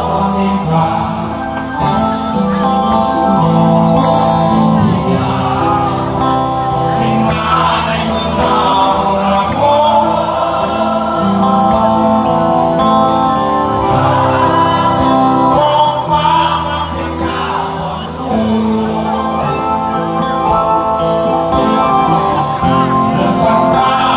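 Live band performing: a lead singer sings the melody over acoustic guitar, keyboard and drums, all amplified through the stage sound system.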